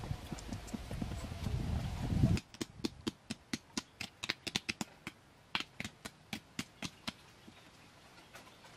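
Stick and hands digging in dry, sandy soil: a run of sharp, irregular ticks and scrapes, a few a second. Before that, a low rumbling noise cuts off abruptly about two seconds in.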